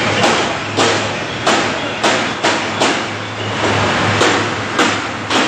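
Hammering on a tractor assembly line: about nine sharp knocks at uneven intervals, with a pause of over a second midway, over the steady low hum of the factory hall.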